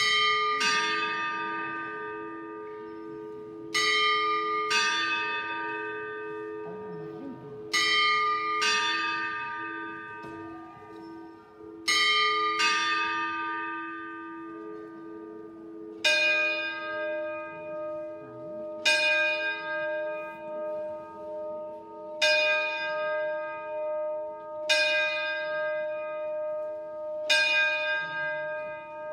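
The Burgos Cathedral clock's automaton bells striking seven. First the Martinillo strikes the quarters: four ding-dong pairs on its two small bells, about four seconds apart. Then, from about halfway, the Papamoscas strikes the hour on a single deeper bell, one stroke every two and a half to three seconds, each left ringing, over a low steady hum.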